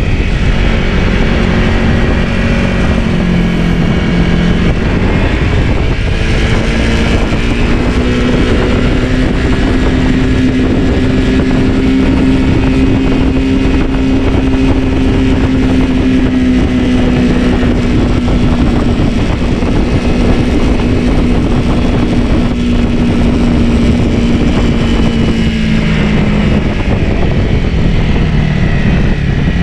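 Dirt bike engine running while the bike is ridden, heard from on the bike over a dense rush of wind and track noise. The engine note drops for a couple of seconds early on, climbs back and holds steady, then sinks again near the end.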